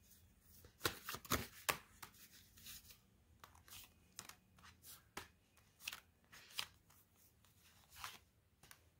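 Tarot cards being shuffled and handled: irregular soft flicks and swishes of the deck, with a cluster about a second in and scattered ones after, as cards are drawn and laid on the spread.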